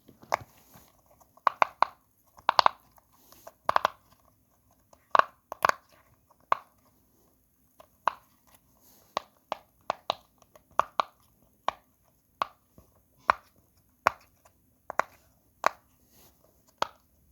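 Silicone Pop It fidget toy's bubbles being pressed through one by one, each giving a sharp click, irregularly at about one or two a second and sometimes in quick pairs. This is the side of the toy that pops well, which the owner calls the good side.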